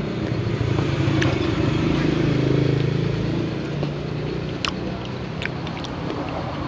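Engine of a motor vehicle passing on the street, a low steady hum that grows louder about two seconds in and then fades away. A few sharp clicks of a metal spoon against the ceramic bowl come in the second half.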